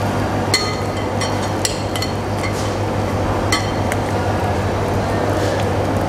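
Metal spoon clinking against the glass mixing bowl and steel saucepan as meatballs are scooped and shaped: several sharp, ringing clinks, most in the first four seconds, over a steady low hum.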